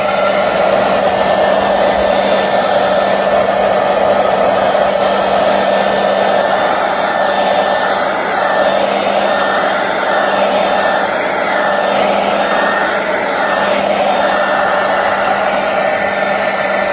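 Handheld hair dryer running steadily, blowing hot air onto the back of a laptop's display lid to soften the screen's adhesive.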